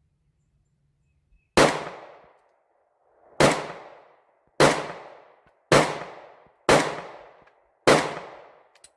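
Stoeger STR-9 9mm pistol fired six times at a steady pace, roughly one shot a second, each a sharp crack with a trailing echo.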